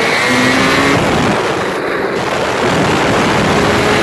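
Engine and road noise of a turbocharged Honda CRX heard from inside the cabin, loud and steady while cruising. The engine tone dips in pitch shortly after the start and climbs again near the end.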